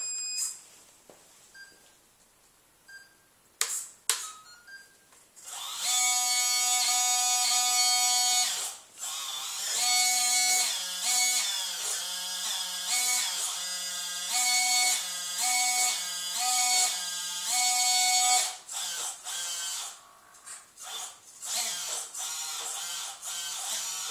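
Electric hydraulic pump of a radio-controlled Cat 320C model excavator whining as the boom and stick are worked. The pitch steps down and back up again and again as the controls are moved. A few faint clicks come first, and after about 18 s the whine starts and stops in shorter pieces.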